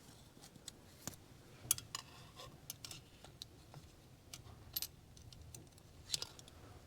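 Faint, irregular metallic clicks and clinks of hand tools and small metal engine parts being handled on a workbench.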